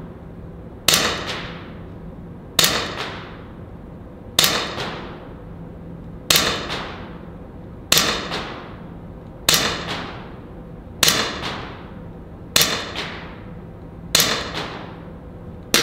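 A Glock-replica air pistol firing single shots, nine in steady succession about one every 1.6 to 1.8 seconds. Each shot is a sharp crack followed by a short echoing tail.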